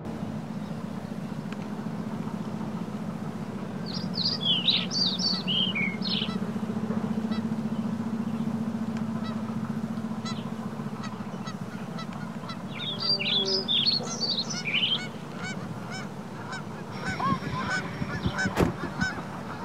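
Geese honking in short bursts of calls, two bursts, then more calling near the end, over a steady low hum.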